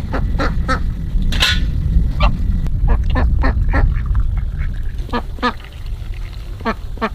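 Ducks quacking: many short, rasping calls, some in quick runs, over a steady low rumble.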